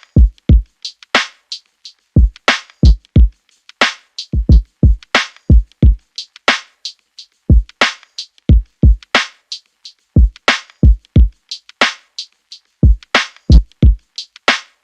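Background music: a drum-machine beat of deep, falling kick drums and sharp snare-like hits in a steady hip-hop-style pattern.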